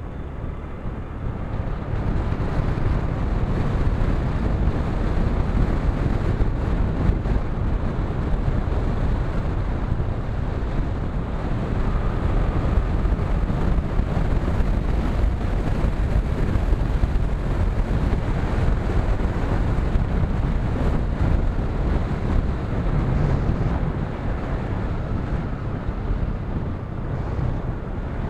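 Wind buffeting the microphone on a moving motorcycle, a steady low rumble of wind and road noise that grows louder over the first couple of seconds and then holds.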